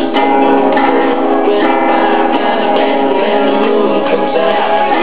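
A child strumming chords on a small acoustic guitar.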